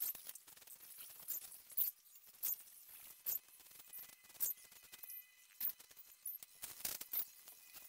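A broom sweeping a dirt floor strewn with straw: a run of short, scratchy strokes, about one to two a second.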